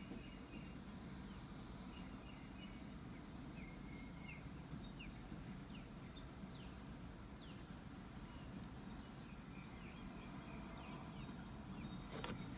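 Birds chirping in short, repeated, downward-slurred notes over a steady low outdoor rumble, with a soft knock near the end.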